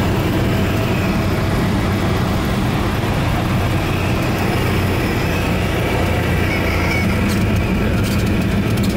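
Cessna 172S's four-cylinder Lycoming engine and propeller running steadily, heard inside the cabin as the plane rolls along a grass runway after landing.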